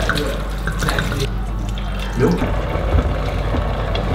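Red wine poured from a bottle into a pot of mince and vegetables.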